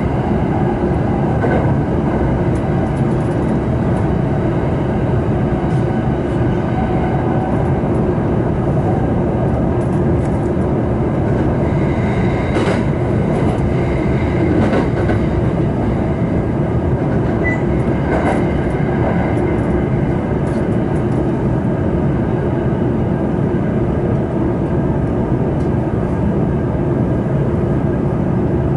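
Inside the car of the Marine Liner electric rapid train running at speed: a steady loud rumble of wheels on rail, with a few sharp knocks from the track about halfway through. A faint high whine comes and goes in the middle.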